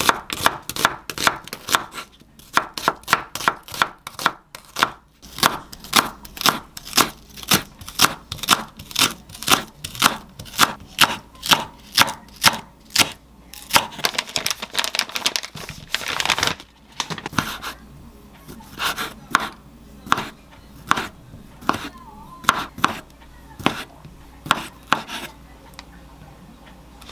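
Chef's knife slicing onion and green onion on a wooden cutting board: a steady run of knife strikes, about two to three a second. About halfway there are a few seconds of rustling noise without strikes, then slower, spaced cuts that stop shortly before the end.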